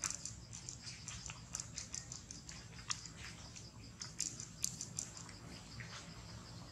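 Scattered soft clicks and ticks, several a second and unevenly spaced, over a steady, finely pulsing high insect trill.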